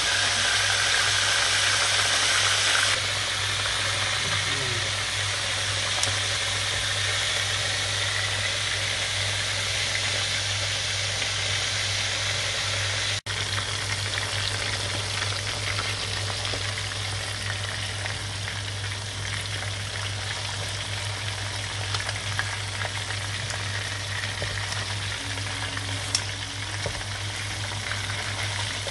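Marinated chicken drumsticks deep-frying in hot oil in a wok: a steady sizzle with occasional small pops, over a low steady hum. The sizzle drops a little about three seconds in.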